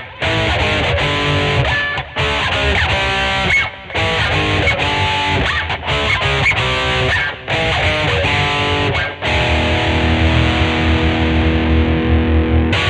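Electric guitar, a Jazzmaster converted to a 'Jazzblaster', played through a distorted amp tone: short phrases of picked lead notes with string bends, broken by brief stops. It ends on a held chord that rings on through the last few seconds.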